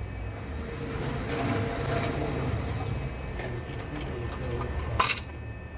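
A single rifle shot from an AR-15 with a CMMG .22 LR conversion kit, firing a high-velocity .22 LR round about five seconds in: one short, sharp crack over steady background noise.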